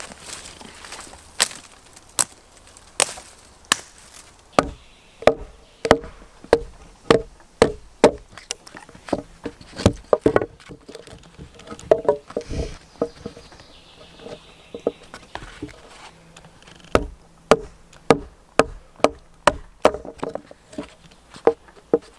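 Wolfgangs W1 full-tang knife chopping and splitting wood: sharp wooden knocks, slower at first, then one or two a second and fuller from about five seconds in as the blade is driven through a log.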